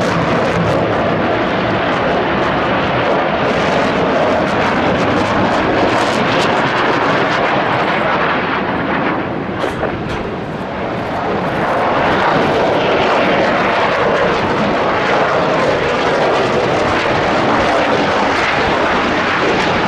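F-22 Raptor's twin Pratt & Whitney F119 turbofans: loud, steady jet engine noise as the fighter flies its display. The noise dips briefly about ten seconds in, then comes back up.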